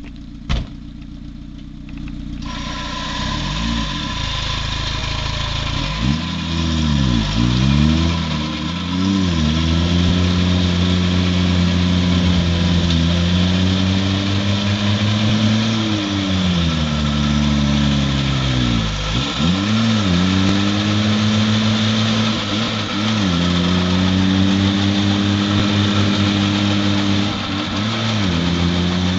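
Small off-road 4x4's engine revving up and down again and again as it churns through deep mud, the revs rising and falling in long swells under load. A steady rushing noise from the churning runs over it from about two seconds in.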